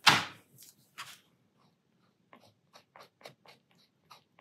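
A rubber (eraser) rubbing dried masking fluid off watercolour paper to uncover the white of the boat sails. There is one louder scrub right at the start, then a run of short, quick rubbing strokes, several a second, from about two seconds in.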